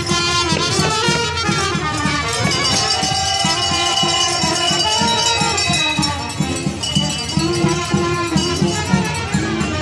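Brass band of trumpets, tuba and drum playing a lively Romanian folk tune over a steady beat.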